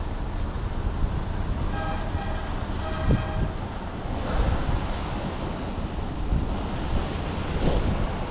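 Steady low rumble of lorries and traffic, with wind buffeting the microphone. About two seconds in come two short electronic beeps, a second apart.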